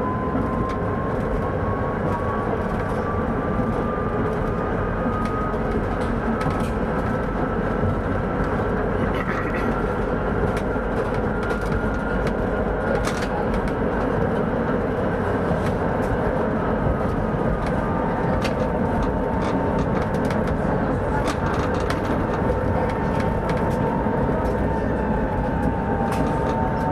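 Electric tram running on rails, heard from the driver's cab: a steady rumble of wheels on track with scattered clicks. A thin motor whine climbs slowly in pitch over the first half as the tram gathers speed, then holds at a steady pitch in the second half.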